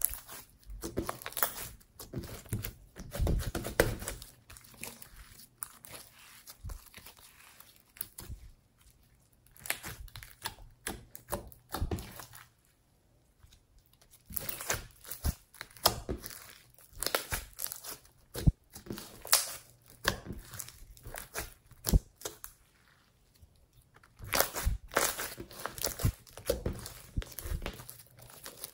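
Hands squeezing, stretching and folding clear slime with silver eyeshadow mixed in, making rapid sticky clicks and pops in bursts. It falls quiet briefly near the middle and again about three-quarters through.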